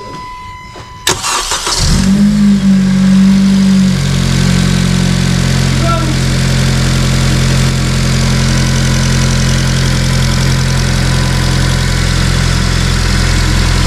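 Honda Civic FN2 Type R's K20 2.0-litre four-cylinder engine started on its first run after a new fuel rail was fitted: a click, a short crank, then it catches just before two seconds in and runs at a raised idle before settling about four seconds in to a steady idle.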